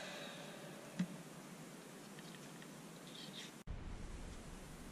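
Faint bench handling sounds: a single sharp click about a second in and a few light ticks later, over low room noise. A hum made of several steady tones fades out in the first half second.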